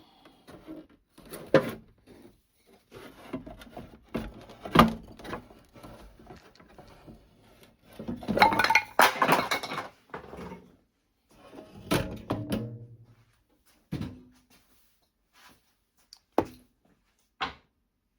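Tools and parts being handled on a workbench: irregular knocks, clunks and short clatters with pauses between them, the busiest stretch a little past the middle.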